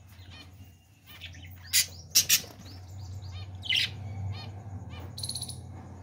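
Budgerigars giving short, high chirps, a quick cluster about two seconds in and a few more near four and five seconds, over a low steady hum.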